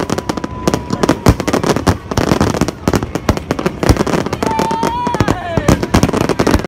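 Aerial fireworks going off in a rapid barrage of bangs and crackles. About four and a half seconds in, a high tone is held briefly, then falls in pitch.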